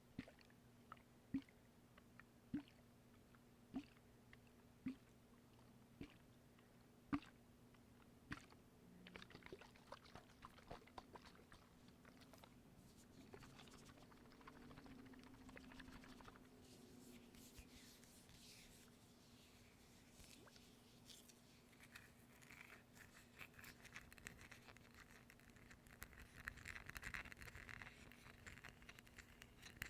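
Faint close-up handling sounds: a row of single sharp taps about a second apart, then soft crackling and scratching that thickens near the end.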